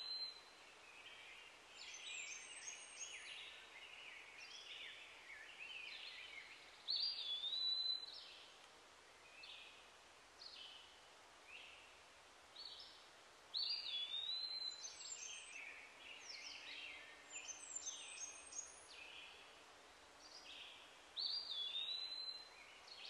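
Birds calling and chirping outdoors. One bird repeats a loud whistled phrase that hooks up and then down, about every seven seconds, four times in all, with softer chirps and twitters in between.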